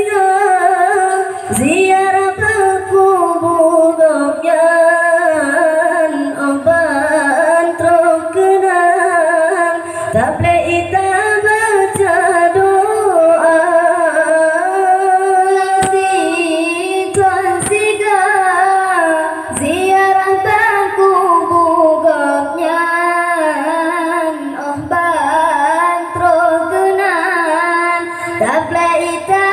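Two boys singing an Acehnese qasidah (sholawat) through microphones and a PA, in long, ornamented drawn-out notes, taking turns and joining together.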